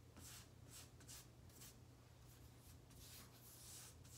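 Foam brush spreading varnish over a plywood panel: faint, quick swishing strokes, about two or three a second.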